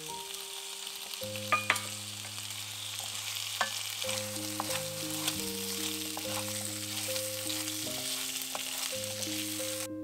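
Cubed potatoes sizzling as they are stirred into hot curry paste in a pot with a wooden spoon, with a few sharp clacks of the spoon against the pot. The sizzling stops abruptly near the end. Soft background music of sustained notes plays underneath.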